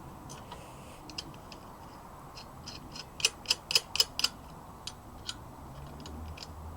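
Irregular light metallic clicks and taps, bunched in a quick run about a third of the way in, as a vise is fitted and bolted onto its steel mounting plate.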